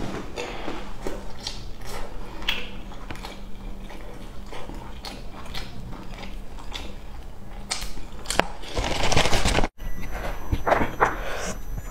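Close-miked mouth sounds of a person chewing noodles: soft, wet clicks and smacks repeating irregularly. About nine seconds in comes a louder, dense crackling burst that cuts off suddenly.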